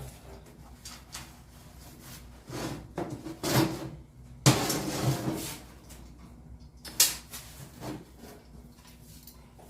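Irregular metallic clanks, knocks and scrapes from pieces of welded steel angle iron being handled and moved on a work surface, with several louder knocks about a third and halfway through.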